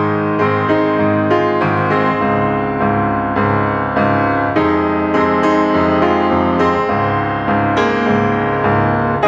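Instrumental background music played on piano, a flowing run of struck notes, each fading after it sounds.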